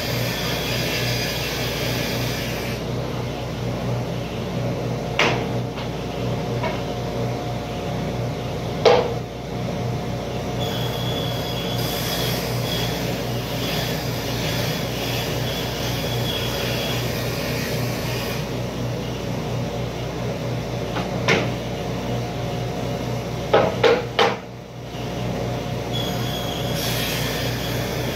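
Steady hum of running workshop machinery, with a few sharp knocks of wooden boards being set down and shifted on the steel table. The loudest knocks come about nine seconds in and as a quick cluster near the end.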